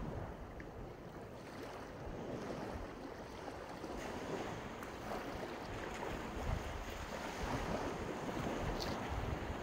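Sea surf washing onto a sandy beach, a steady rush of waves, with wind gusting on the microphone now and then.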